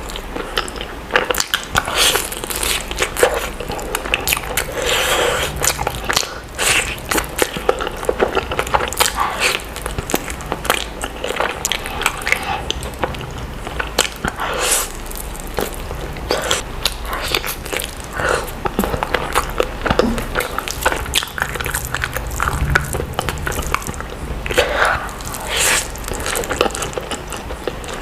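Close-miked eating of Schezwan noodles: continuous chewing and biting, full of quick wet mouth clicks and smacks in an irregular rhythm.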